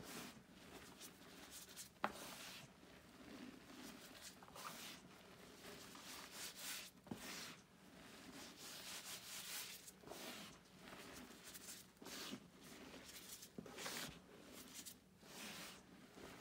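Hands squeezing and crumbling handfuls of pink gym chalk powder: faint, repeated soft crunching and rustling, one squeeze every second or two, with a single sharp click about two seconds in.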